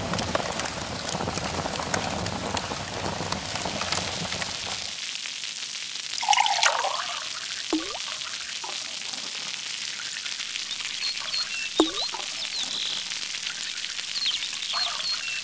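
Water sound effect: a steady pouring, rain-like hiss for about five seconds, then a few separate drips and plops a second or more apart.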